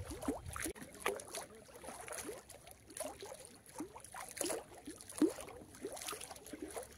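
Small waves lapping and sloshing against a concrete lake bank: an irregular run of short watery slaps and glugs.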